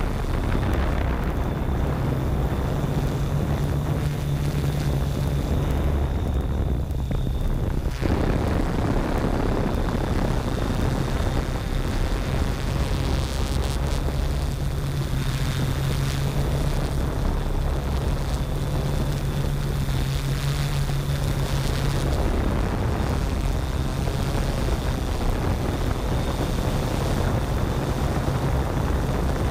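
Yuneec Typhoon G quadcopter's electric motors and propellers, heard from the GoPro slung beneath it: a steady buzzing hum whose pitch shifts a little as the motor speed changes, about eight seconds in and again near the twenty-two second mark.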